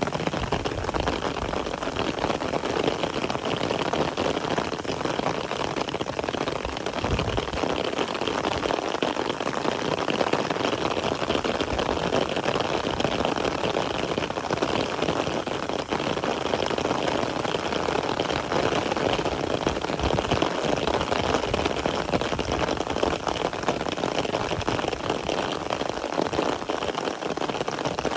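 Steady rain falling, a dense even patter of drops, with a low rumble coming and going underneath.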